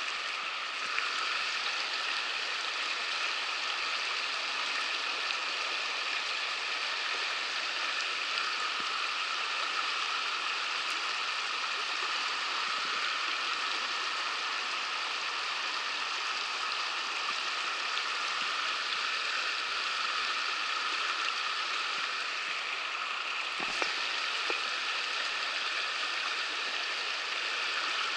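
A shallow river rushing over rocky riffles: a steady rush of water.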